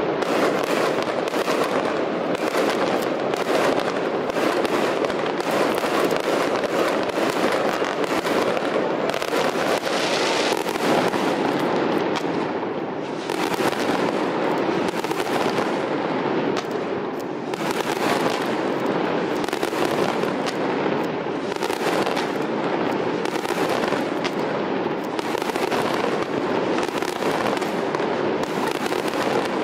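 Fireworks display: a dense, continuous run of bangs and crackles, one burst after another with hardly a gap, dipping briefly twice near the middle.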